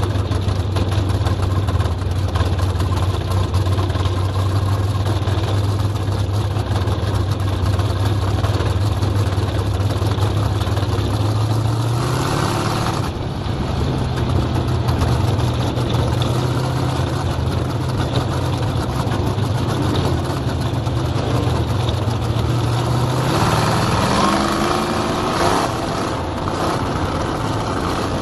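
Onboard sound of a winged dirt-track race car's engine running steadily at low speed. Its pitch steps up about twelve seconds in and climbs again near the end as the car picks up speed.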